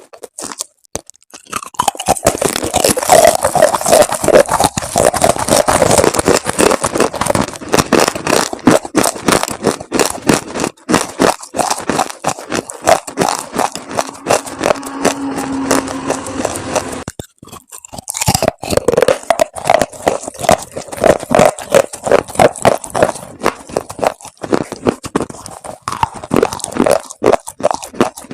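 Close, loud crunching of chalk paste, a dense run of rapid crackles and snaps that pauses briefly a little past the middle and then starts again.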